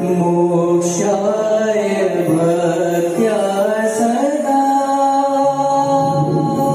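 Male vocalist singing a slow devotional melody into a microphone, his notes bending and gliding in the middle and then holding long and steady. Electronic keyboard chords are held underneath.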